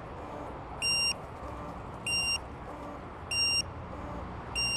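Electronic beeper giving a short, high-pitched beep about every second and a quarter, four times, over a low steady background rumble.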